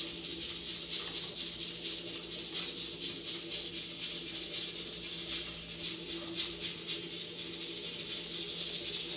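Faint clicks and soft taps from a small kitchen knife cutting soft cooked chayote in the hand, with the cubes dropping into a glass bowl, over a steady low hum and hiss.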